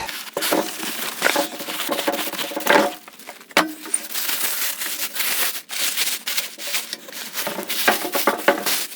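Box packaging crunching, crinkling and scraping as a bench grinder is pulled out of its cardboard box, with one sharp knock about three and a half seconds in.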